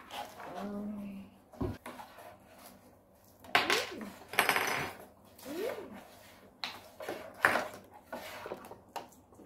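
A plastic fork and toy utensils clicking and scraping against a plastic tub and a tabletop while slime is worked, in a series of sharp taps and scrapes, loudest in the middle. Brief bits of a child's voice come in between.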